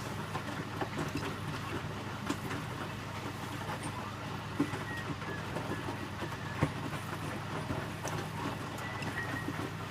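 Electrolux W455H commercial washing machine's drum turning during the rinse: a steady motor hum with scattered clicks and a couple of sharper knocks from the wet load tumbling.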